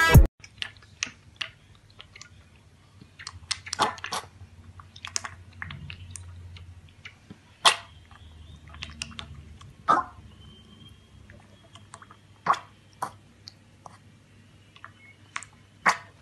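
Piglet slurping and lapping milk from a metal bowl: irregular wet slurps and mouth clicks, sometimes several in quick succession.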